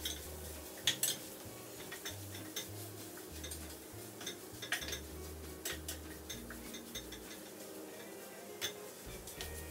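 Slotted wooden spatula knocking and scraping against a stainless steel frying pan while stirring mashed potato into a fried stuffing, in irregular sharp clicks and taps. Soft background music with a changing bass line runs underneath.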